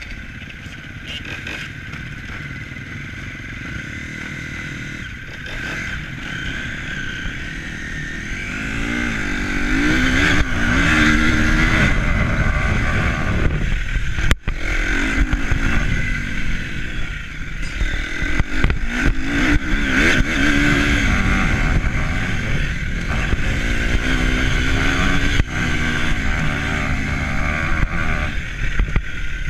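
An engine revving up and down repeatedly over a constant rush of wind on the microphone, growing louder about eight seconds in.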